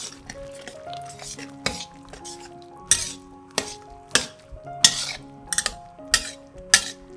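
A metal spatula stirs through thick sauce in a stainless steel wok, scraping and clinking against the pan. The strokes grow sharper from about three seconds in and come about every half second. Soft background music plays underneath.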